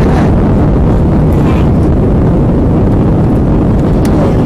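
Cabin noise of an Airbus A320-family jet airliner climbing just after takeoff: a loud, steady rumble of the engines and rushing air heard from inside the cabin.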